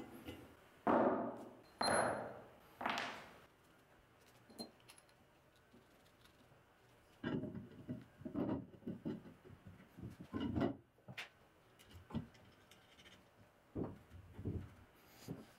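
Steel belt-grinder parts being handled and assembled by hand: a series of metal clinks and knocks, a few with a brief ring, as a bolt is tightened on a laser-cut steel plate and a roller wheel is fitted onto its arm. The clinks come in two groups, three strong ones about a second apart early on, then a cluster of knocks in the middle and two more near the end.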